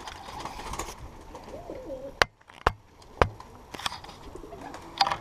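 Domestic pigeons cooing, low wavering calls heard twice, with three sharp clicks or knocks in the middle.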